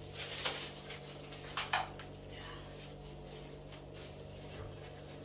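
Two short clatters of kitchen handling, about a second apart, then softer rustling, over a steady low hum.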